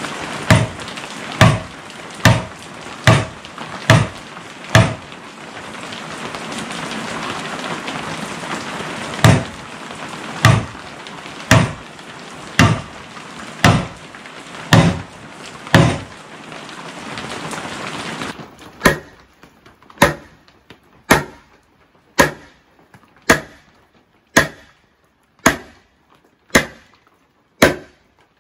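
Short sledgehammer striking the ends of round poplar legs, driving them into holes in a half-log saw-horse beam: sharp blows about one a second, in three runs with short pauses between. A steady hiss lies under the first two-thirds and stops abruptly.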